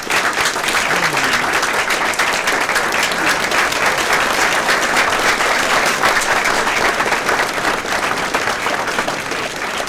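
Audience applauding, a dense steady clatter of many hands that starts at full strength and eases off slightly near the end.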